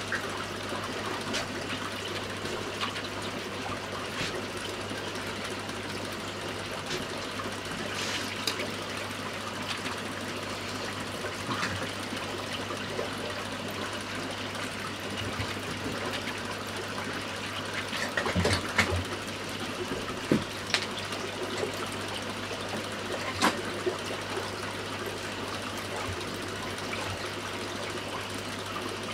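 Aquarium filter running: a steady trickle of water over a low, constant hum, with a few scattered clicks, a small cluster of them about two-thirds of the way through.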